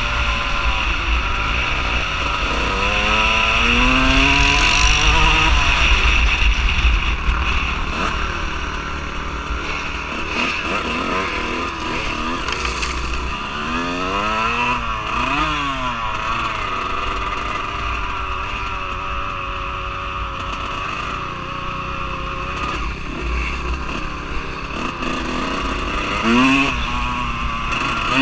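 Dirt bike engine running under way on a dirt track, rising and falling in pitch a few times as the throttle is opened and closed.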